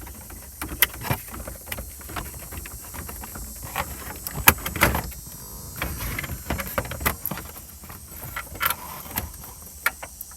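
Irregular clicks, taps and knocks of hands handling things: the camera being set down and the plastic switch and wiring connectors in a truck's dash being handled. The loudest knock comes about four and a half seconds in.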